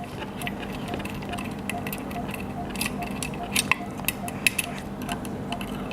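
Irregular small metallic clicks and ticks of a thin screwdriver working the screws of the transistor holders on an inverter's heat sink, over a steady low hum.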